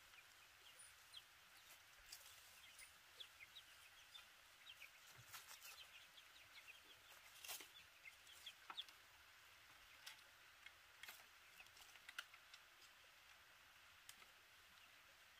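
Faint chicken clucking and short peeps, with a few sharp light clicks, the strongest about halfway through.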